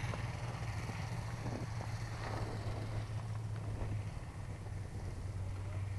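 Snowmobile engine running with a steady low hum, which eases slightly near the end.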